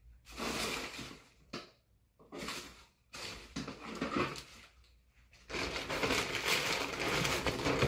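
Plastic mailer bag rustling and crinkling as a hand rummages inside it. It comes in several short bursts, then runs on without a break for the last two seconds or so.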